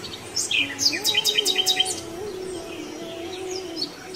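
Birds chirping in quick high trills and short falling whistles over a soft melody of long held notes that step up and down in pitch.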